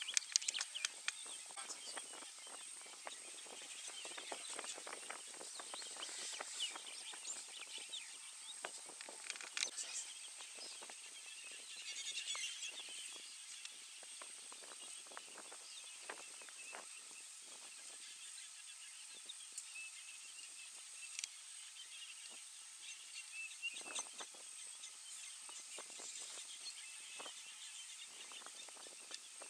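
Outdoor bush ambience: faint bird calls, scattered crackles and rustles, and a steady high hiss.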